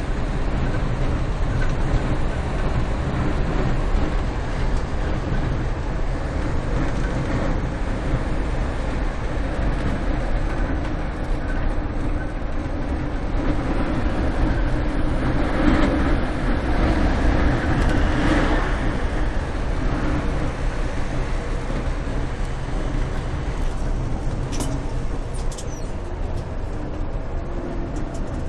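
Scania K124 bus with its 360 hp diesel engine under way, heard from the driver's seat as a steady low engine drone mixed with road and wind noise. It grows louder for a few seconds about halfway through, and a couple of brief clicks come near the end.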